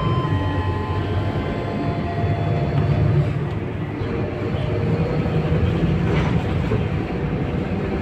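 Scania K230UB city bus on the move, heard from inside the passenger saloon: its rear-mounted five-cylinder diesel engine and drivetrain make a steady low rumble, with faint whining tones above it.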